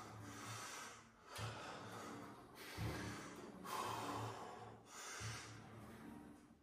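Heavy, forceful breathing during repetitions on a chest fly machine: a hissing breath about every second, in time with the exertion.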